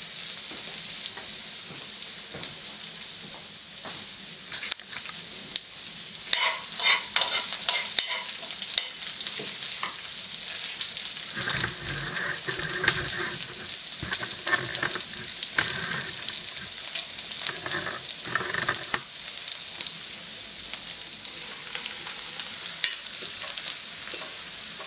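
Sliced onion sizzling in hot oil in a frying pan, a steady hiss, with a utensil knocking and scraping against the pan through the middle stretch.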